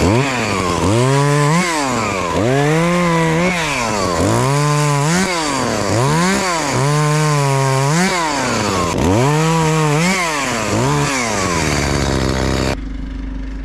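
Chainsaw cutting wood, its engine revving up and falling back in repeated surges about every one and a half seconds. Near the end the revving stops and leaves a low steady hum.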